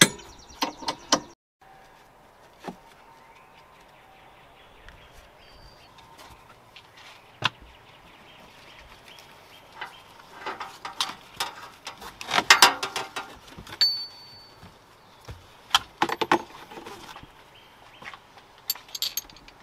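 Racing harness hardware being handled: metal buckles and strap adjusters clicking and rattling as the webbing is pulled and fitted. The clicks come in scattered bursts, quiet at first and busiest around the middle.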